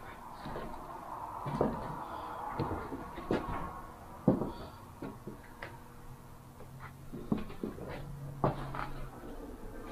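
Footsteps and shifting debris on the wrecked floor of an abandoned house: irregular knocks, cracks and creaks, the loudest about four seconds in.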